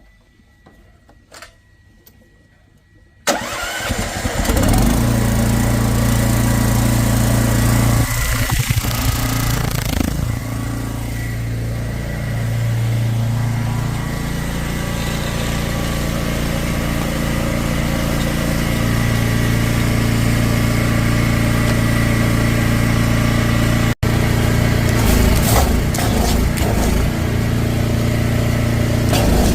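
Drain jetter engine starting up suddenly about three seconds in, then running loud and steady, its pitch wavering for a few seconds before it settles.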